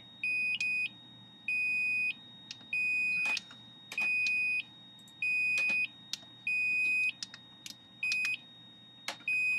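Homemade 7400-logic drum machine playing its notes on piezo elements: a step-sequenced pattern of high-pitched electronic beeps, a louder beep about every 1.2 seconds with a quieter, higher tone between. Light clicks of the sequencer's push buttons come as the pattern is changed, and the last few beeps come shorter.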